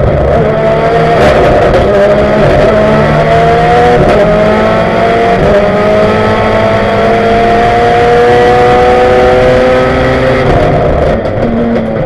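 Ford Focus rally car's turbocharged engine heard from inside the cockpit at full throttle, its pitch climbing through the gears with drops at each upshift, then falling near the end as the driver lifts off and shifts down.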